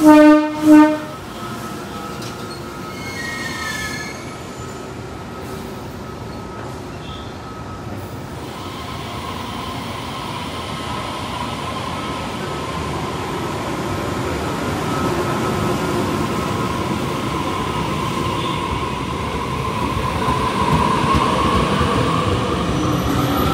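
TRA Taroko Express electric multiple unit sounding two short, light horn toots as it starts from the station. A brief brake application follows, then the train pulls away, its motor whine and wheel noise growing louder as it gathers speed.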